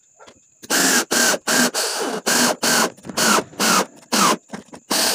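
Cordless drill run in about a dozen short trigger bursts, roughly three a second, each a brief motor whine, as it works into the side of a small pine box to make the pivot for its lid.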